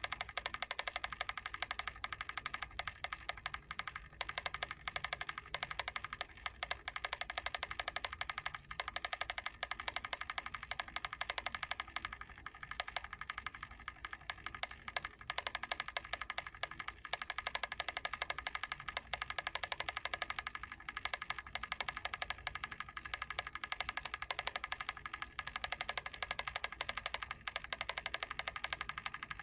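Mechanical timer ticking rapidly and steadily, its clockwork clicking on without a break.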